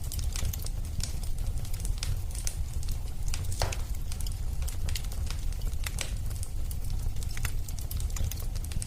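Wood fire burning in a fireplace: a steady low rumble with frequent irregular crackles and snaps, one sharper pop about three and a half seconds in.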